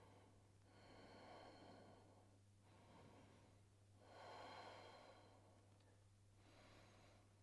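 Faint, slow breathing of a person holding a stretch: several soft breaths in and out, the strongest about four seconds in, over a low steady hum.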